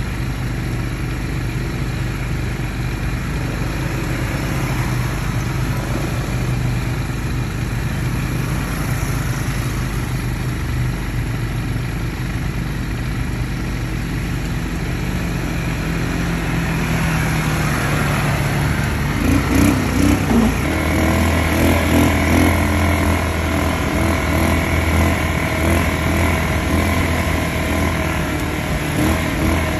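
ATV engine running steadily. About two-thirds of the way through, its note changes and gets louder.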